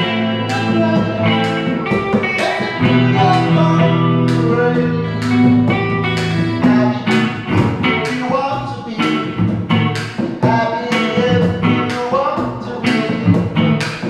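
Live acoustic guitar strumming and electric guitar playing a song together, with regular strum strokes under sustained chords.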